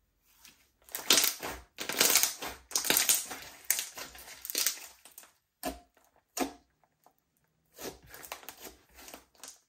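Slime being squeezed and kneaded by hand: irregular crackling and popping in bursts, with a pause of about two seconds broken by two single pops, then another run of crackling near the end.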